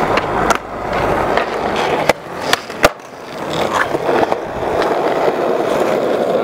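Skateboard wheels rolling on concrete, a steady rumble that dips for a few seconds and then builds again. Several sharp clacks of the board come through, the loudest about three seconds in.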